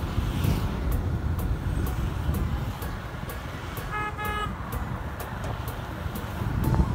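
Steady low road and traffic rumble while travelling along a busy highway. About four seconds in, a vehicle horn gives two short toots in quick succession.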